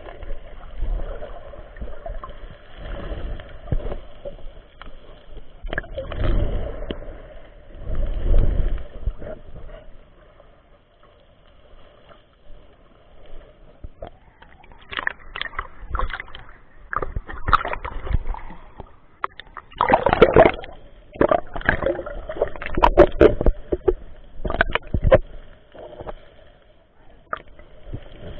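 Muffled sloshing and gurgling of sea water around a submerged camera, with low rumbling swells in the first half and a run of sharp clicks and knocks in the second half.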